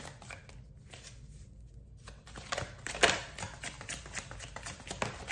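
A deck of divination cards being shuffled and handled by hand. It is quiet at first, then a run of light flicks and snaps of the cards starts about two and a half seconds in, the sharpest about three seconds in.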